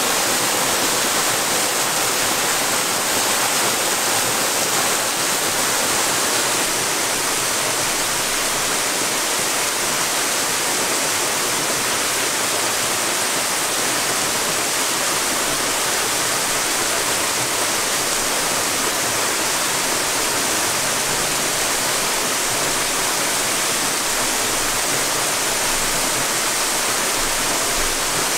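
Small waterfall pouring over a rock ledge into a pool: a steady, even rush of falling water.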